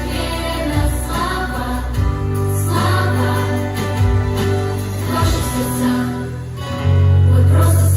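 Pop song: a group of voices singing over a backing track with a heavy bass. A louder held bass note comes in near the end.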